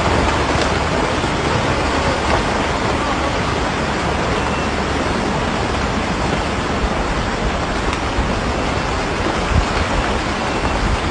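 Landslide on a steep hillside: a loud, steady rushing roar of rock, mud and water pouring down the slope.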